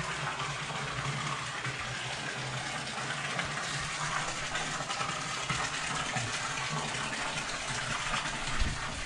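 Water pouring steadily into a small swimming pool, a continuous splashing rush.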